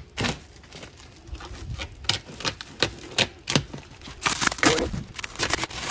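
Clear plastic stretch wrap being torn open and peeled off a wrapped door panel by hand: a run of crinkling and crackling, busier and louder in the last couple of seconds.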